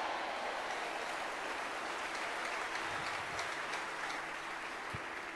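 A large congregation clapping and cheering as one mass of noise that slowly dies away, with a single dull thump near the end.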